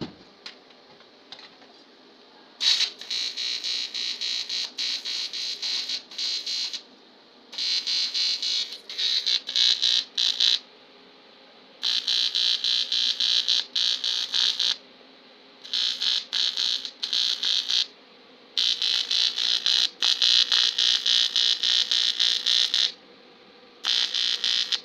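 AC TIG welding arc on an aluminium bicycle frame, a loud steady buzz that starts and stops in six runs of one to four seconds with short breaks between them as the arc is struck and broken.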